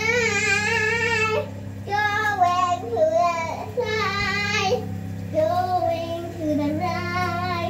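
A high voice singing a melody in several phrases of long, wavering held notes, over a steady low hum.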